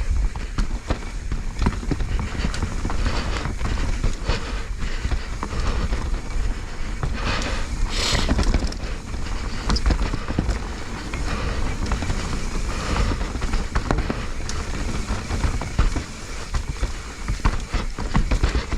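Mountain bike descending a rough, rooty dirt trail: a steady rush of wind on the action camera, tyres over dirt and roots, and the bike rattling and clattering over bumps, with a brief hissing rush about eight seconds in. Among the rattles is a clicking from the bike that the rider cannot place.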